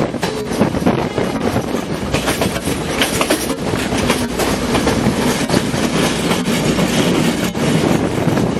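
Passenger train running along the track, heard from aboard one of its carriages: the wheels clatter steadily over the rails with a constant rush of running noise.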